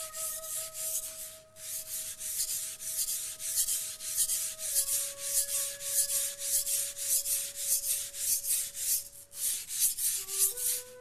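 Steel blade of a Japanese kitchen knife scraped back and forth on a wet, coarse #120 waterstone, grinding the lower bevel. A fast, even scraping of about three strokes a second, with short breaks about a second and a half in and near the end.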